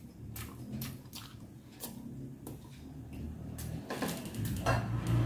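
Faint, scattered clicks and small knocks of eating and handling dishes at a table, with a low rumble of movement building near the end.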